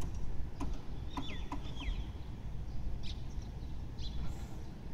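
A few small birds chirping, short falling calls about a second in, over a low, steady outdoor rumble with a few faint clicks.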